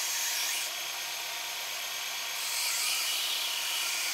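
Belt grinder with a fine-grit abrasive belt grinding the edge bevel of a hardened 5160 steel tomahawk head, a steady rasping hiss that swells about every two seconds as the blade is worked across the belt, bringing the edge close to sharp.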